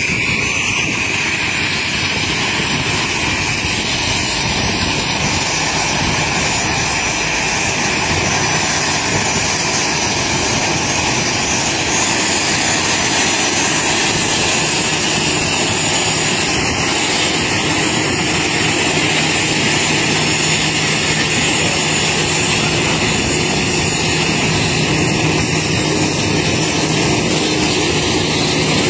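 Aircraft engine running with a steady, unbroken drone.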